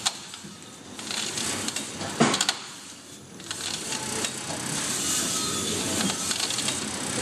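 Intermec AMF-300 brine injector running, its needle head cycling up and down over meat with a steady high hiss. There is a sharp knock at the start and a cluster of sharp knocks a little over two seconds in.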